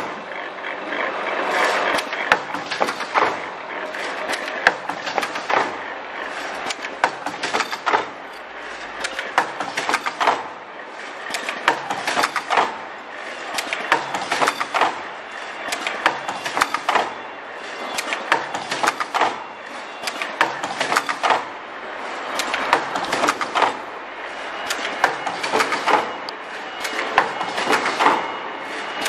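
Automatic mask earloop welding machine running: a rapid stream of mechanical clicks and clacks from its pneumatic cylinders and feed mechanism, swelling into a louder clatter about every two seconds as each mask cycles through.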